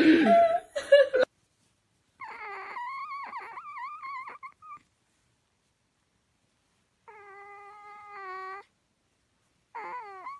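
A brief burst of voices and laughter, then a sleeping kitten mewing three times. The first mew is long and wavering, the second steadier, and the last short and falling in pitch.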